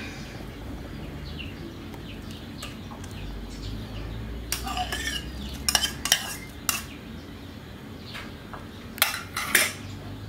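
A spoon clinking and scraping against a bowl and the rim of a metal cooking pot as fish is tipped into the pot. Several sharp clinks come in two clusters, one about halfway through and one near the end, over a low steady background.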